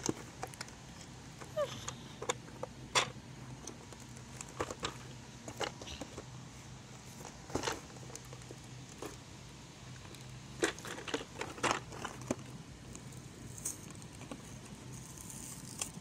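Hands handling a plastic toy truck in its cardboard display box: scattered clicks and knocks of hard plastic, with plastic packaging crinkling near the end.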